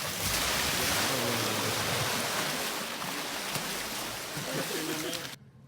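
Water rushing steadily over a muddy toy as it is washed clean, a hissing splash that cuts off suddenly near the end.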